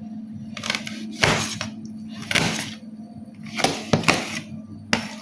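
Knife chopping a lemon on a cutting board: about seven uneven strokes, some close together, over faint background music with a steady held note.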